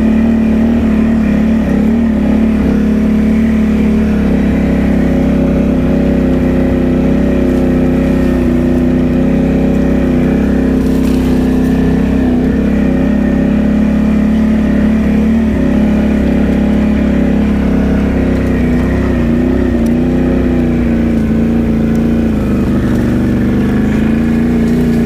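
Can-Am Outlander ATV engine running at a steady low trail speed, its pitch wavering slightly and dipping briefly near the end.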